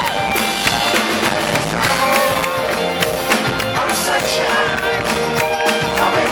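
Live band playing a song: drums, guitar and voice, loud and dense, with steady drum hits and a long held note through the second half.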